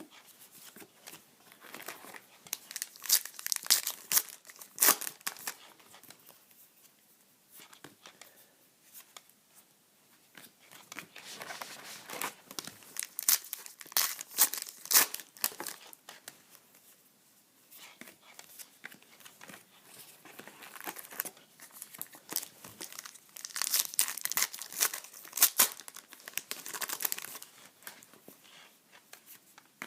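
Trading card pack wrappers being torn open and crinkled, in three bouts of sharp crackling with quieter pauses between.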